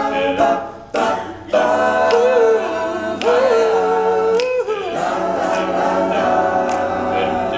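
Male a cappella group singing in close harmony. Backing voices hold chords while a lead voice sings a wordless line that slides up and down and holds a long note in the middle.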